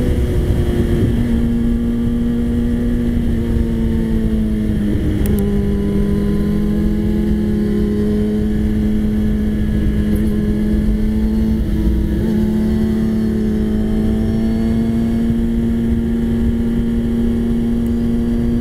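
Sport motorcycle engine running at a steady cruising speed, heard from on board the bike, with wind rushing over the microphone. The engine note dips briefly about four or five seconds in, then holds steady.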